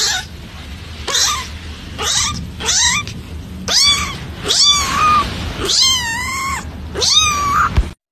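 A kitten meowing over and over: about eight short meows, each rising then falling in pitch, roughly a second apart, the last two drawn out longer.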